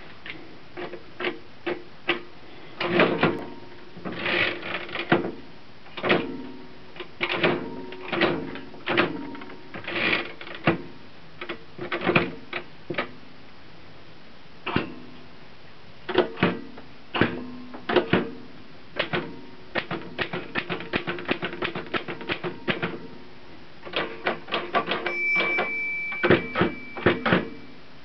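L.C. Smith & Corona No. 8 manual typewriter with a 10-inch carriage being typed on: irregular runs of type bars clacking against the platen, broken by short pauses. Near the end the margin bell rings once while a few more keys are struck.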